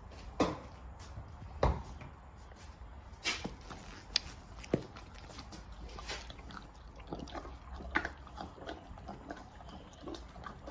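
Horse biting into and chewing a sprinkled frosted donut: irregular crunching, smacking clicks from its mouth over a low steady hum.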